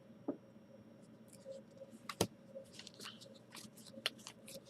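Baseball trading cards being handled and shuffled through: faint scattered clicks and rustles, with one sharper snap about two seconds in and a run of small clicks near the end.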